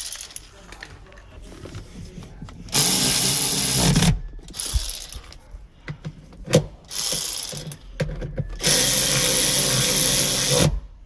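A cordless power driver runs in three bursts, the longest near the end, driving the car seat's mounting bolts back in. Quieter clicks and handling of the tool and bolts come between the bursts.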